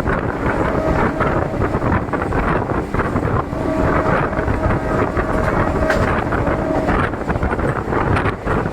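DEMU train running at speed, heard from on board: a steady rumble and clatter of wheels on the track, with wind buffeting the microphone. A faint steady whine comes in about three and a half seconds in and stops near seven seconds.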